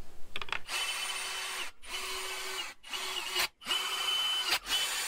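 A power drill or driver running in about five short bursts, each a second or less, with brief stops between them and a steady motor whine in each.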